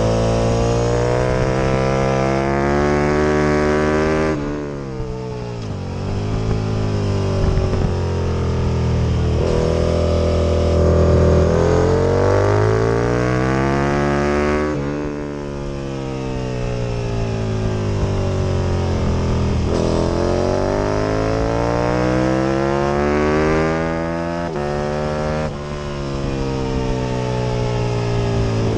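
Aprilia RSV Mille's V-twin engine at racing speed, its pitch climbing through the gears with sudden drops at each upshift, and twice falling away as the bike slows for a corner before pulling up again.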